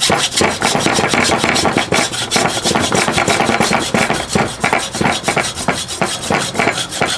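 Hacksaw cutting into a small microwave-oven transformer, rasping back and forth through its copper winding and steel core in quick, even strokes several times a second.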